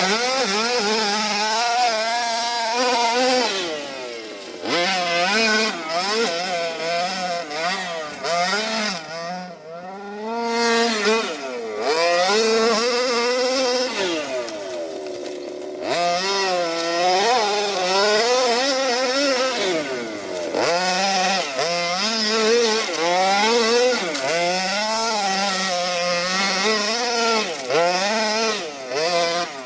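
HPI Baja 5T's 26cc two-stroke petrol engine with a Jet-Pro tuned pipe, revving up and down over and over as the throttle is worked, with a couple of short drops to a low note when the throttle is let off.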